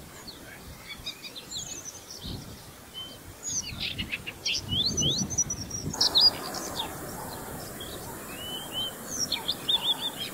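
Several wild birds chirping and calling in a chorus of many short, quick, sliding high calls. About six seconds in, the background hiss changes, but the calls go on.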